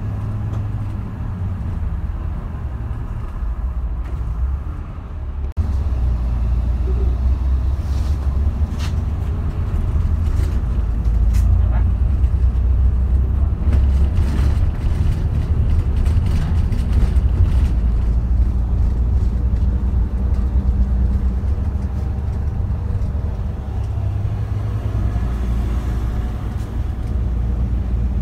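Steady low rumble of engine and road noise, heard from inside a moving vehicle, with a brief dropout about five and a half seconds in and a few light clicks a little later.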